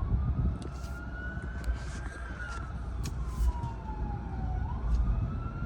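Emergency vehicle siren in a slow wail: it rises for about two seconds, falls for about two and a half, then rises again. It is heard from inside a moving car over the low rumble of the road.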